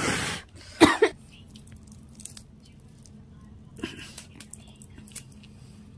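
Two short, sharp puffs of breath blown onto fire-roasted dried fish in the first second, blowing off the ash. Faint crackling follows as the brittle fish is broken apart by hand.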